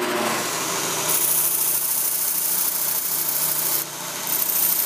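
Bench belt sander running, with a tungsten electrode pressed against the belt to grind away its contaminated end: a steady motor hum under a harsh grinding hiss that starts about a second in, breaks off briefly near the end and resumes.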